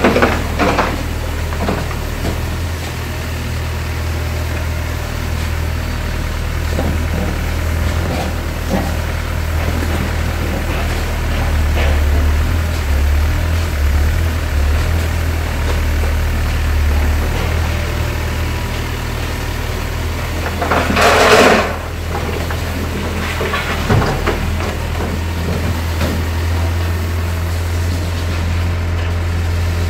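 Diesel engine of a Volvo EW60C wheeled excavator running steadily with a low hum. A brief, louder burst of noise comes about two-thirds of the way through.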